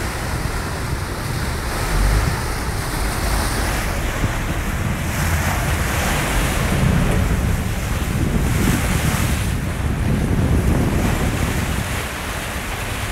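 Wind buffeting the microphone over rushing, churning water at the stern of a sportfishing boat.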